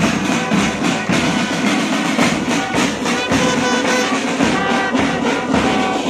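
School marching band playing: brass horns sound a tune over the beat of snare and bass drums.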